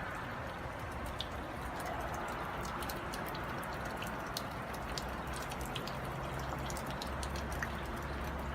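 Sleet, mixed rain and snow, falling steadily, with many small sharp ticks of pellets and drops hitting surfaces.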